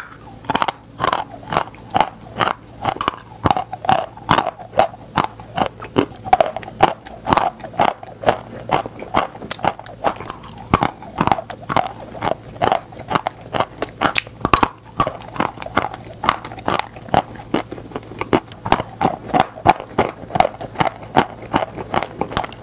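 A person biting and chewing edible chalk close to the microphone: rapid, crisp crunches, a few each second, without pause.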